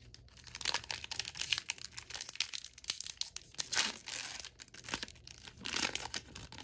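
A Panini Score football card pack's wrapper being torn open and crinkled by hand: a run of irregular rips and rustles.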